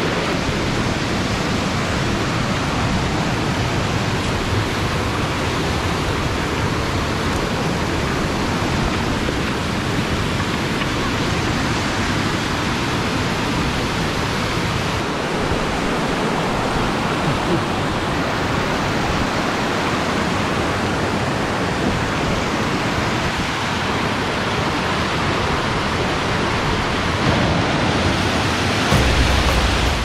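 Rushing water of a waterfall cascading over granite rock, a steady, even hiss.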